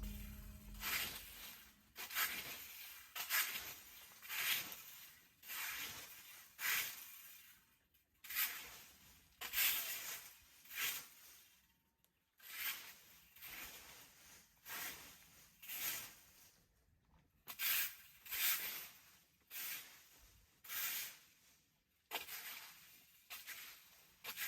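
A scraping sound repeated about once a second, each stroke a short hiss that fades quickly.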